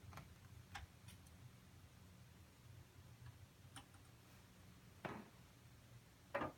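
Near silence: a faint steady low hum with a few irregular soft clicks.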